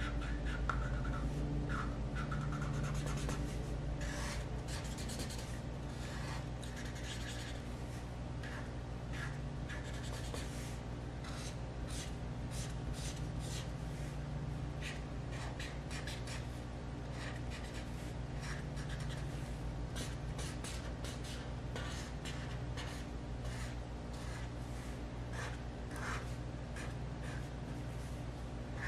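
Felt-tip marker scribbling back and forth on paper in quick repeated strokes, colouring in a large area.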